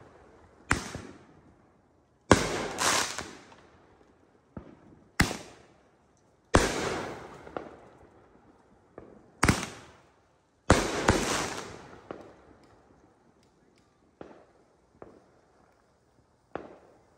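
Aerial fireworks bursting overhead: about ten sharp bangs over the first eleven seconds, some in quick pairs, each trailing off in a long fading rumble, then a few fainter pops near the end.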